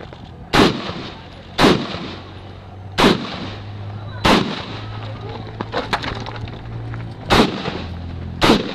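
Six single gunshots fired one at a time at an uneven pace, each a sharp crack with a short echoing tail, with a few lighter clicks and clatter in the longer gap between the fourth and fifth shots.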